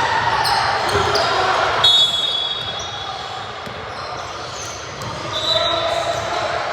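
Basketball game in an echoing gym: a ball bouncing on the hardwood, with voices in the background. Two short high squeaks are heard, one about two seconds in and one later on.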